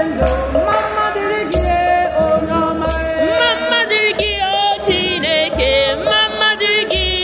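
Hymn sung at Mass, voices carrying a melody with gliding, ornamented notes over a steady beat about every second and a quarter.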